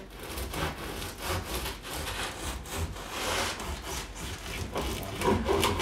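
Serrated bread knife sawing through the crust of a loaf on a wooden cutting board, in repeated back-and-forth strokes.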